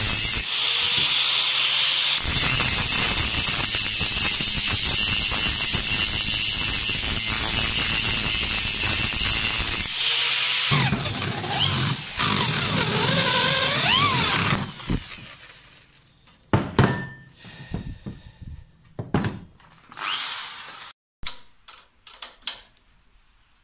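Angle grinder grinding a steel bar, a loud, high-pitched abrasive screech for about ten seconds. Next, for a few seconds, a power tool runs with a pitch that slides up and down. Near the end come scattered metallic clicks and knocks from hand-tightening bolts with a spanner.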